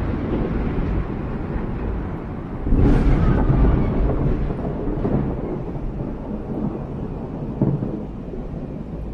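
Thunder rolling and rumbling, with a new, louder peal breaking in about three seconds in and slowly dying away, and a smaller jolt near the end.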